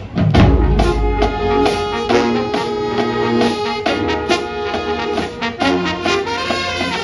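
Marching band playing a brass-heavy tune: trumpets, trombones and sousaphones over marching drums. The whole band comes in together with strong bass just after the start.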